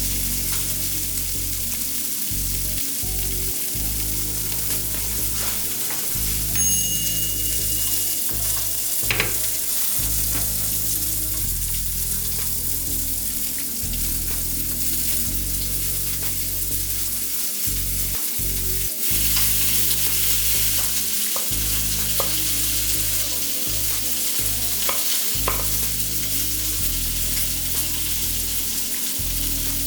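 Food sizzling in a frying pan, a steady hiss, with a few sharp taps and scrapes of a utensil being stirred through it. Bass-heavy background music plays underneath.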